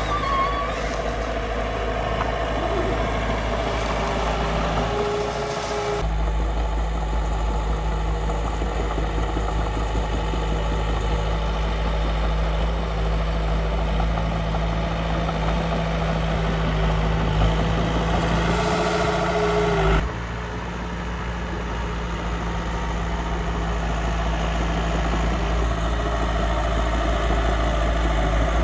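Engine sound of a miniature construction machine running steadily. The sound shifts abruptly twice, about 6 seconds in and again about 20 seconds in.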